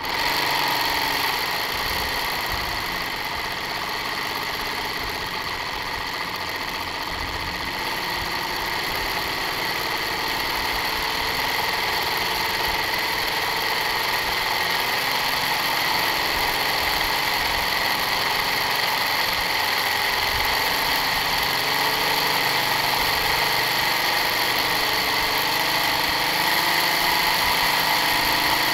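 Simulated sound of a Detroit Diesel 3-71 two-stroke diesel idling, played by a Lego engine model: it cuts in suddenly and runs at a steady idle, growing slightly louder toward the end.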